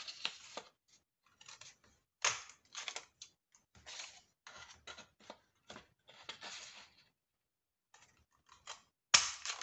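Sheet of craft paper rustling as it is handled and repositioned, broken by sharp clacks of a handheld lever craft punch cutting tab shapes into it, the loudest clack near the end.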